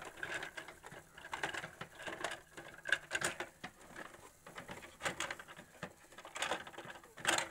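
Plastic parts of a vintage Fisher-Price parking garage toy clicking, tapping and clattering as they are handled, in irregular small knocks.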